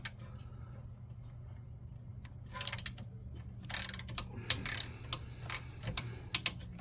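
Metal hand tools clicking and knocking irregularly against the rear brake caliper and its Allen-head bolts, getting busier about halfway through, over a low steady hum.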